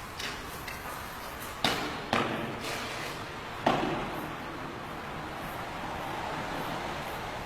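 Three sharp bangs with echoing tails, about a second and a half in, half a second later, and near the middle, among a few fainter clicks. No bugle is heard.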